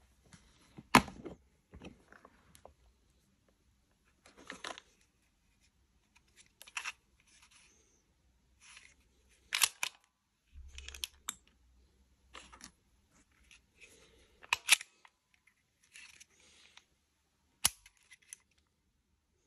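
A hard plastic pistol case being opened and a polymer-frame pistol handled: a string of sharp plastic and metal clicks and snaps, the loudest about a second in, with rustling of plastic bags between them.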